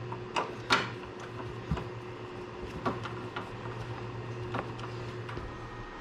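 A patch panel being screwed into a rack's metal rails without washers: scattered light clicks and taps of screws and screwdriver on metal, over a low steady hum that stops and starts twice.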